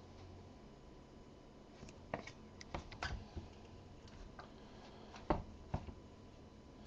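Trading cards handled and flipped through by hand: soft scattered clicks and light card-on-card taps, a cluster about two to three seconds in and a few more later.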